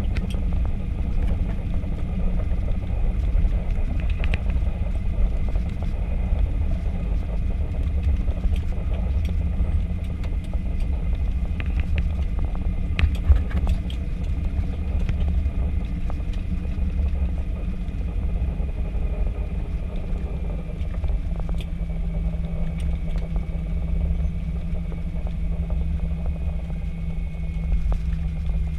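Inside an Airbus A320's cabin during the landing rollout: a steady low rumble of the wheels on the runway and the engines, with a faint high whine that drifts slightly lower as the airliner slows. A few knocks and rattles come through, the loudest about thirteen seconds in.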